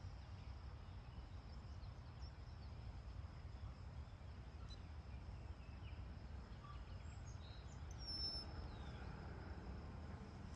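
Quiet outdoor ambience: a low rumble of wind on the microphone, with a few faint bird chirps, one a little clearer about eight seconds in.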